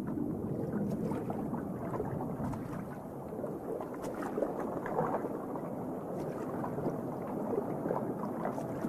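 Water churning and gurgling, muffled as if heard from underwater, with a few small clicks: an osprey thrashing at the surface with a heavy dead cichlid in its talons.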